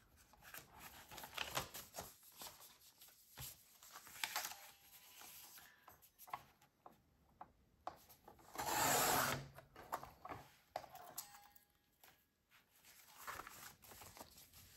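Paper rustling as a folded stack of paper is lined up on a sliding-blade paper trimmer, then a single swish of about a second, about nine seconds in, as the trimmer's blade carriage is drawn along the rail and slices off the folded edge.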